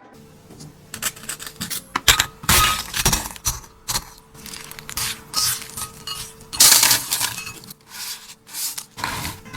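Kitchen utensils clinking, knocking and scraping against dishes in irregular bursts, with a faint steady hum underneath.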